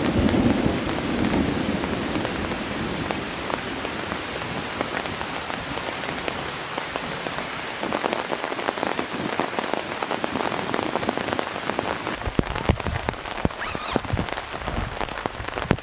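Heavy rain falling on a tarp shelter, with a deep rumble of thunder dying away over the first couple of seconds. From about eight seconds in, big drops hit the tarp louder and more often.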